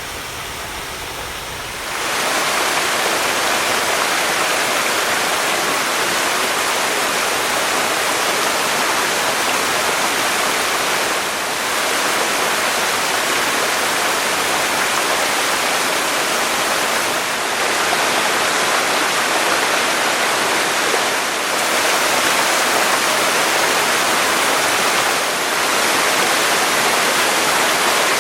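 A 22 m waterfall's water falling, a loud, steady rushing noise that comes up sharply about two seconds in and stays even.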